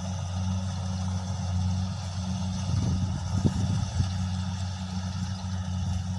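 Rice combine harvester's engine running as a steady, low drone while it cuts the paddy, with a few brief louder flickers in the middle.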